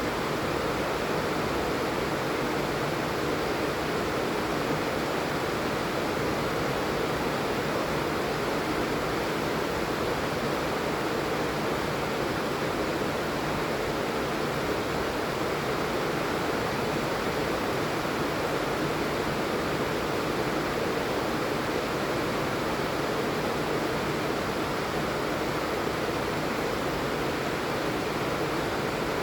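Steady heavy rain falling, an even hiss of rain with no let-up.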